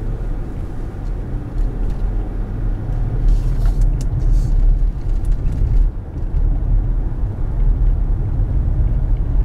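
Road and engine noise inside a moving Cadillac CTS Sport Wagon's cabin: a steady low rumble. A brief rushing hiss rises over it a few seconds in, with a single click at about four seconds.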